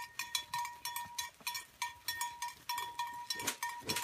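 A bell on a reindeer's collar ringing over and over, several quick strikes a second, each leaving a short clear ring, as the animal moves its head while feeding. Two duller knocks come near the end.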